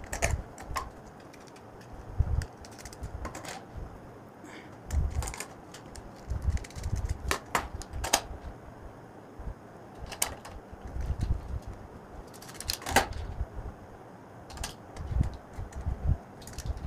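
Plastic clicks and knocks of a modular switch and socket being pressed into a plastic switch-board faceplate, with dull bumps of hands handling the plate. The clicks come irregularly, a dozen or so, the sharpest about thirteen seconds in.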